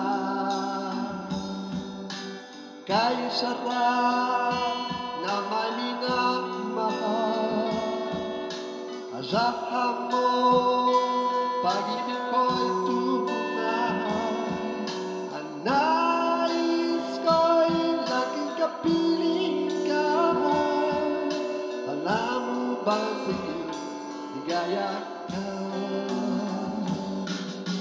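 A man singing a Filipino pop song into a microphone over a recorded backing track.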